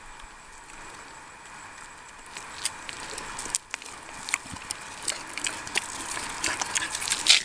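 Crunching and scuffing on gravel from a young pig moving about close by: a run of short clicks and scrapes that grows busier toward the end.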